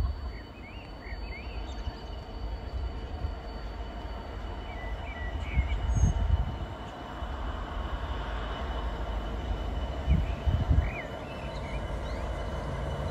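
A Class 66 diesel locomotive approaches with a train, its two-stroke engine rumbling and growing louder over the second half. There are low gusts of wind on the microphone about six and ten seconds in, and birds chirp now and then.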